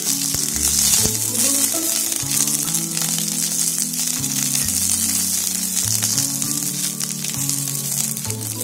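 Green chillies, peanuts and garlic sizzling as they fry in hot oil in a pan, stirred with a spatula. Background music plays over it.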